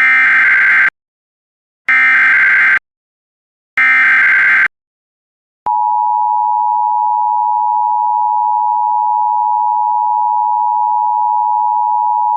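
Emergency Alert System SAME header: three identical bursts of buzzing digital data, each a little under a second long. About a second after the third burst comes the steady two-tone EAS attention signal, which holds to the end. Together they herald a National Weather Service tornado warning.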